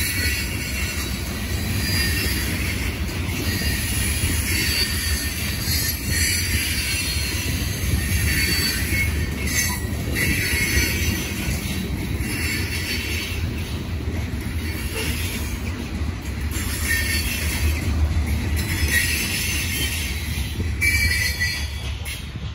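Covered hopper cars of a freight train rolling past: a steady low rumble of steel wheels on rail, broken by repeated high-pitched wheel squeals. The sound falls away near the end as the last car clears.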